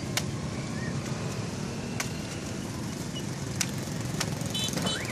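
Steady street traffic rumble, with a few sharp knocks scattered through it. Near the end comes a short high double beep.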